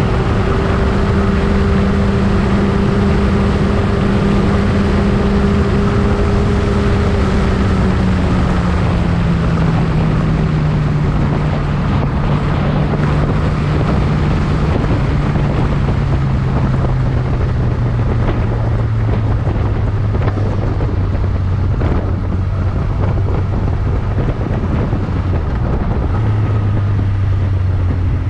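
Motorcycle engine running at a steady pitch, then its note falls gradually over about ten seconds as the bike slows, with a small rise near the end. Wind noise buffets the microphone throughout.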